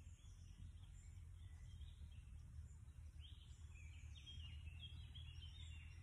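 Faint woodland birdsong over a low steady rumble: scattered high chirps, then a run of short falling notes from about three seconds in.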